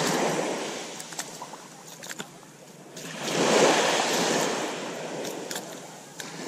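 Small waves washing up on a sandy beach, the surf swelling twice, with a few faint clicks over it.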